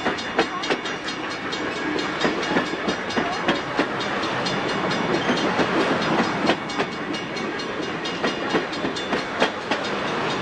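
Union Pacific passenger cars rolling past close by, their steel wheels clicking and knocking over the rail joints over a steady rolling rumble.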